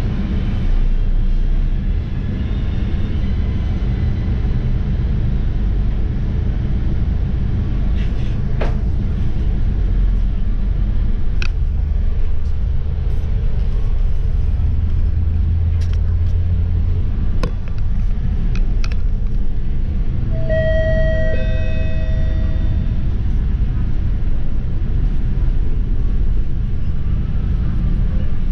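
Steady low engine and road rumble of a RapidKL city bus on the move, with a few sharp rattling clicks. About twenty seconds in comes a short two-note falling chime.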